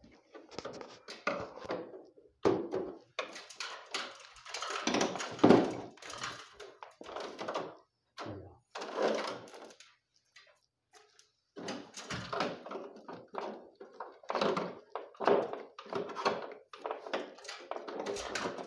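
Irregular plastic knocks, clicks and scraping from the casing of a split-type air conditioner's indoor unit being handled and pried at. There is a short quiet pause about ten seconds in.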